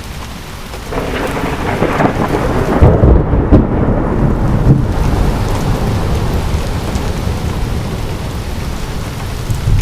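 A peal of thunder over steady rain: it builds about a second in, is loudest around three to five seconds, then rumbles on and slowly fades, echoing away into the distance.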